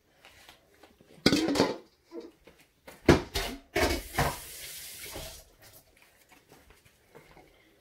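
Kitchenware clattering as a mug and pan are handled: a loud knock about a second in and another about three seconds in, followed by a short stretch of rushing noise and fainter clinks.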